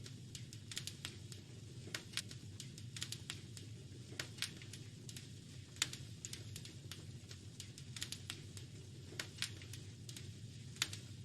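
Wood fire crackling in a fireplace: irregular sharp pops and snaps, a few louder ones, over a steady low rumble of the flames.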